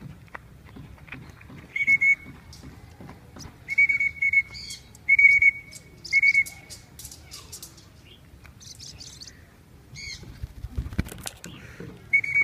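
A whistle blown repeatedly in short blasts on one high note, with high chirps from small parrots in between.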